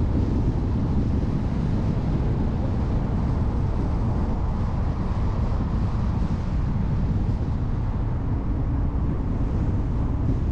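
Steady wind buffeting the microphone of a car-mounted action camera, over the low rumble of the moving car, unchanged throughout.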